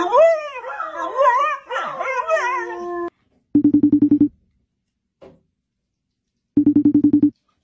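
White bulldog-type dog howling in wavering, rising-and-falling notes, its attempt ending on a held note about three seconds in. Then a white domestic waterfowl gives two short bursts of rapid, evenly pulsed calls, about three seconds apart.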